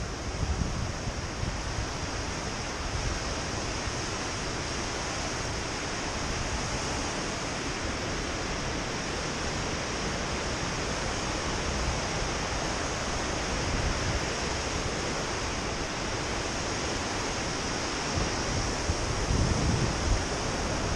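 Steady rushing wind noise on the microphone of a camera riding on a bicycle coasting down a wet road, with heavier low buffeting in the last couple of seconds.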